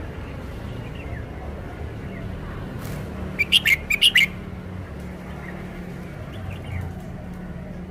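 Red-whiskered bulbul singing a short phrase of quick, loud notes about halfway through, with faint chirps before and after, over a steady low background rumble.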